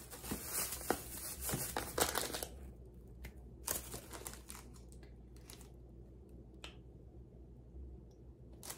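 Packaging crinkling and rustling as items are lifted out of a box. It is densest for the first two seconds or so, then comes in a few short rustles before settling.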